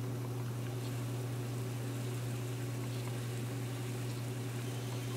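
Steady low electrical hum with a faint even whir, from a Z-scale model train layout as a Tenshodo D51 Mikado steam locomotive pulls a long string of cars around the track.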